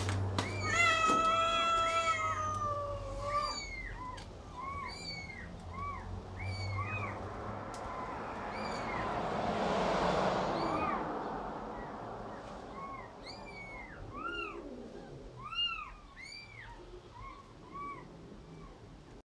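Kittens mewing over and over, short rising-and-falling mews about two a second, with one longer drawn-out meow near the start. A rushing hiss swells briefly midway.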